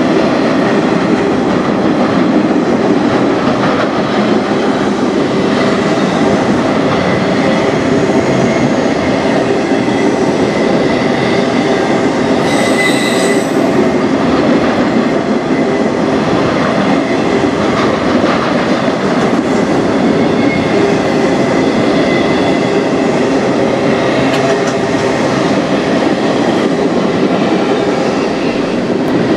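Freight cars of a manifest train rolling steadily past, a continuous loud rumble of wheels on rail, with a brief high-pitched wheel squeal about halfway through.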